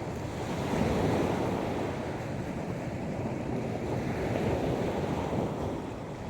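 Sea surf washing onto the beach in slow swells, louder about a second in and again around five seconds in.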